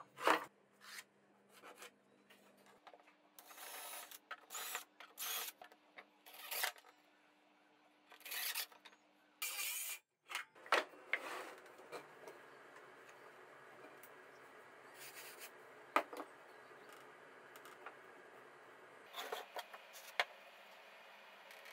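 Wood and tools being handled on a workbench: a run of short scraping and rubbing noises over a faint steady hum, thinning out to occasional clicks and knocks after about ten seconds.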